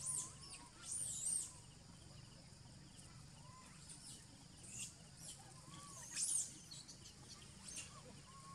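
High-pitched animal chirps and short rising-and-falling whistled calls, the loudest right at the start, about a second in and about six seconds in, over a steady low background hum.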